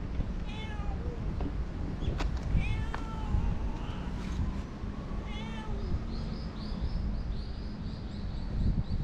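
A stray cat meows three times, with short talkative calls spaced a couple of seconds apart. From about six seconds in, a quick high chirping repeats several times a second. A steady low rumble runs underneath.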